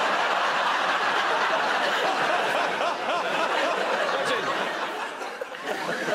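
Studio audience laughing together, steady and loud, easing off slightly near the end.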